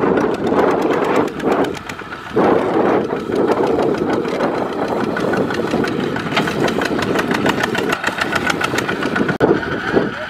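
Two-wheel walking tractor's single-cylinder diesel engine running under load, hauling a trailer of rice sacks, with a rapid, even chugging beat. It dips briefly about two seconds in and is loudest in the middle as the tractor passes close.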